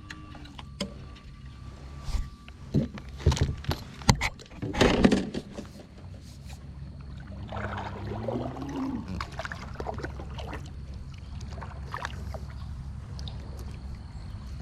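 Sharp knocks and clatter against a plastic kayak hull for a few seconds, as gear is handled in the boat. Then, about eight seconds in, a cow gives one low moo that rises and falls in pitch.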